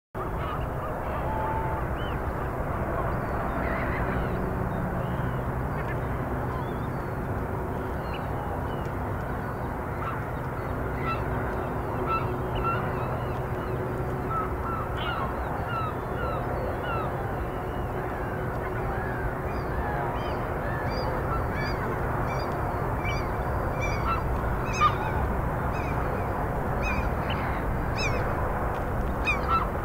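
Outdoor ambience of many birds calling, with geese honking, over a steady low background noise. A single sharp click about 25 seconds in.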